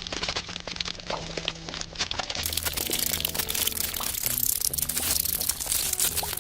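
Close-miked mukbang eating: rapid, wet crunching and chewing of food, continuing across a cut, over faint background music.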